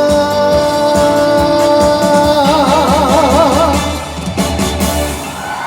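A male singer holds the long final note of a trot song over a live band with drums. The note wavers into vibrato about two and a half seconds in, and the song ends with the band stopping near the end.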